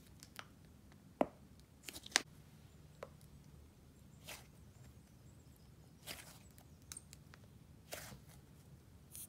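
Thick icing and clay slime being pulled, stretched and squeezed by hand: soft, scattered clicks and pops every second or two.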